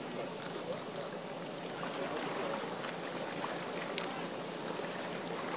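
Steady outdoor background noise with faint voices in it.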